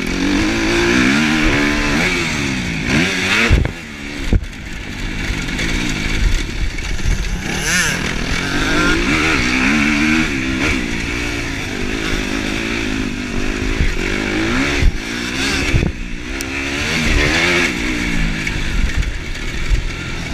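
Kawasaki KX250F four-stroke single-cylinder motocross engine under hard riding, revving up and falling back again and again as the rider works the throttle through the gears. The engine drops off with a few sharp knocks about four seconds in and again about three quarters of the way through.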